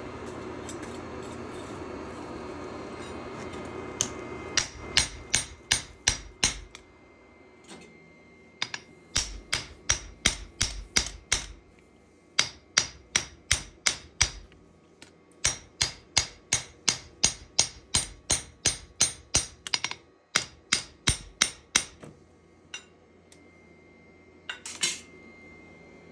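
Hammer blows on steel in knife forging, in quick even runs of about three strikes a second broken by short pauses. A steady hum comes before the first blows.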